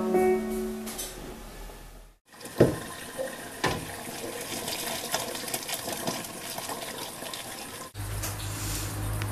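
Hot pasta water poured out of a pot into a steel kitchen sink: a steady splashing rush with a couple of sharp knocks of the pot. A few music notes fade in the first second, and a low steady hum comes in near the end.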